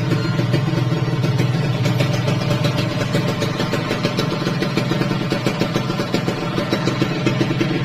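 Kawasaki Ninja R's single-cylinder two-stroke engine running steadily at idle, with a rapid, even beat.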